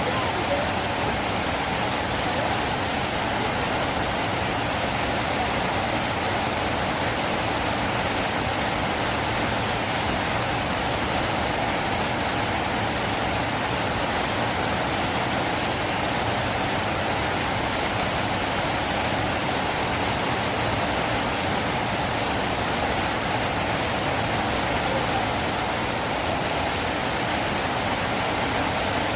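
River flowing: a steady, unbroken rush of water.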